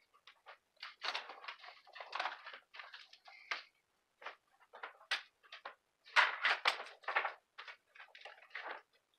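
Electrical cables and plugs being handled and pulled from the back of a desk full of electronics: irregular rustling, scraping and small plastic clicks, busiest and loudest about six to seven seconds in.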